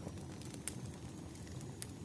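Wood fire burning: a steady low rumble with scattered sharp crackles, two louder pops about two thirds of a second in and near the end.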